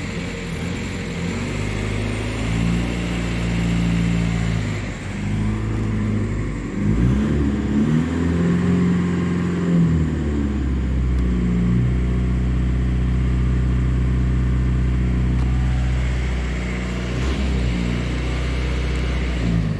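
VW 1.9-litre PD turbodiesel four-cylinder (BEW), heard from inside the cab, running at raised revs around 2,600 rpm. The revs are held steady for stretches and rise and fall a few times. The engine has a freshly replaced camshaft and sounds pretty healthy.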